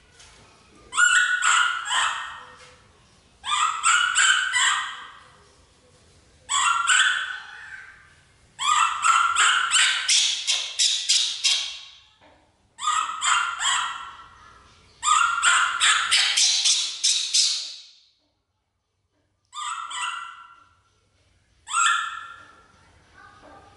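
A baby macaque giving loud, high-pitched crying calls in about eight bouts of one to three seconds each, with short pauses between. Each bout is made of quick pulses.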